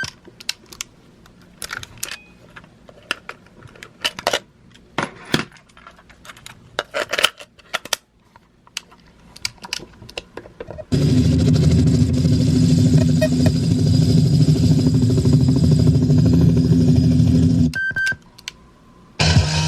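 Sony WM-EX677 cassette Walkman's controls and tape mechanism clicking as it is operated between tracks, followed by a steady loud noise lasting about seven seconds. After another click, music starts again near the end.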